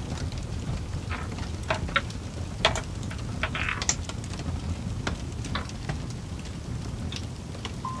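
Scattered sharp clicks and short scrapes from a small metal gadget being handled and worked by hand, mostly in the first half. Under them runs a steady low rumble.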